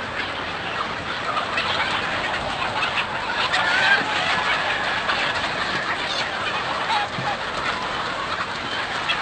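A huge flock of chickens clucking all at once in a dense, continuous chatter, with a few longer drawn-out calls standing out.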